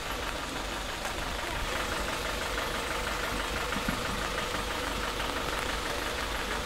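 Stationary bus's diesel engine idling steadily.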